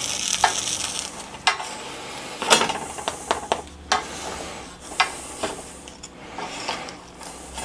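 Gözleme being lifted and turned by hand and with a wooden spatula on a dry steel griddle: scattered light taps and scrapes against the pan, about half a dozen, over a faint sizzling hiss.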